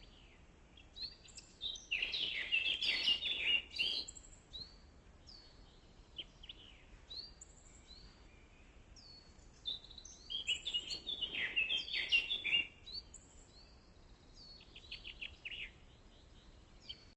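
Small birds chirping: short high chirps throughout, with two louder, busier stretches of song and a quick rapid trill near the end.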